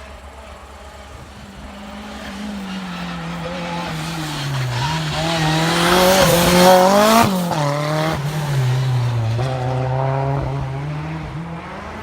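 Racing car running a slalom course, its engine revving up and dropping back several times as it accelerates and brakes between the gates. It is loudest about six to seven seconds in, with a sharp drop in revs just after, then it pulls away and fades.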